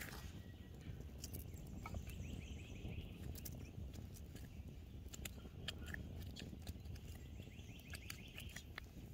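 Small campfire crackling with scattered sharp pops, while a bird calls in quick runs of repeated notes twice, about two seconds in and near the end.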